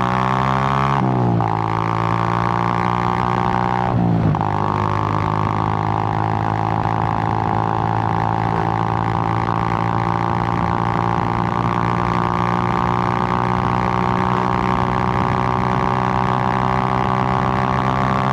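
Suzuki GN125's single-cylinder four-stroke engine under way. Its note drops and picks up again twice in the first few seconds, as with gear changes, then holds a steady cruising drone.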